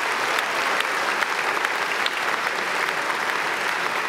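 Large audience applauding steadily, a dense wash of many hands clapping at once.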